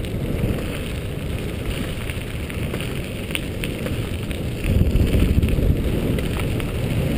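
Wind rushing over the microphone and the wheels of a dog scooter rolling fast over the path, a steady rumbling noise with a few faint ticks. It swells louder for about a second around two-thirds of the way through.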